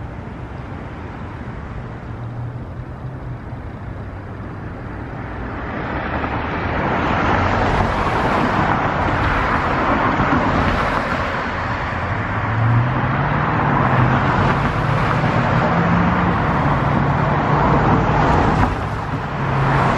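Street traffic: rushing road noise that swells about six seconds in as vehicles pass close by, with an engine hum rising in pitch near the middle.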